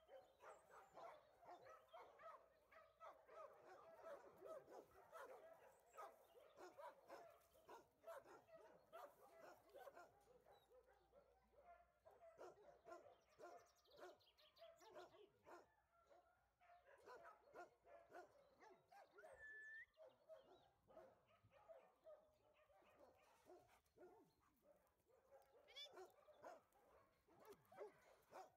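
A group of dogs barking continuously, faint and overlapping, many barks a second with no pause.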